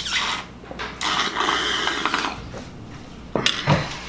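A person slurping the leftover milk from a cereal bowl, in a short burst and then a longer gurgling slurp, with a louder knock near the end as the bowl goes down on the table.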